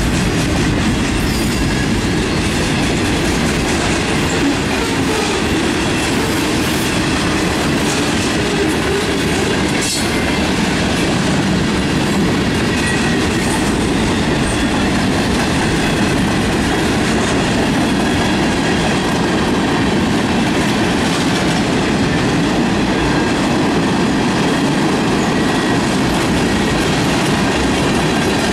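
Cars of a Canadian National manifest freight train (boxcars, tank cars and a covered hopper) rolling past at a steady speed. Their steel wheels make a continuous, even, loud rumble on the rails.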